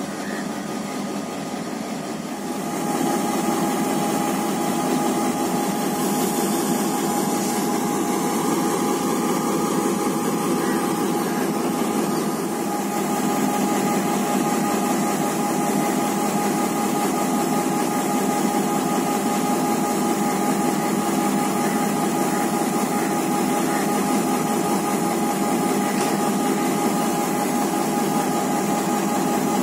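Class M7 diesel-electric locomotive's GM 8-645E two-stroke V8 diesel idling at a standstill: a steady hum with a thin, constant whine over it, getting louder about two and a half seconds in.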